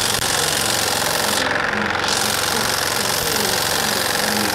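Impact wrench hammering steadily on the centre screw of a two-jaw puller, working to draw a tight press-fit pulley off a power steering pump shaft.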